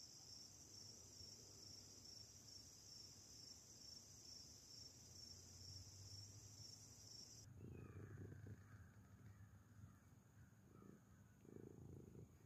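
Faint, steady, high-pitched insect chorus, typical of crickets, which cuts off about two-thirds of the way through. After that comes soft low rustling and handling noise.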